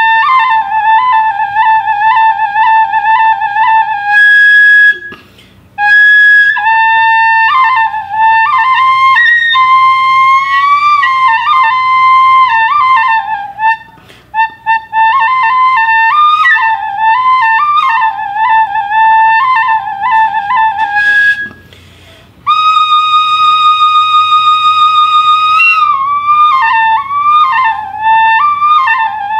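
Background music: a solo flute playing an ornamented melody of quick wavering notes. It breaks off briefly a few times and holds one long, higher note about three quarters of the way through.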